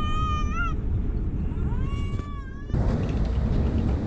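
Airliner cabin rumble during the landing roll, with wing spoilers deployed. Over it, two high whining cries rise and fall in pitch, one at the start and one about two seconds in. Near three seconds the sound changes abruptly to a busier noise.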